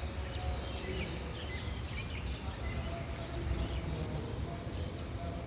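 Several birds chirping and singing in a dawn chorus, with many short chirps overlapping, over a steady low background rumble.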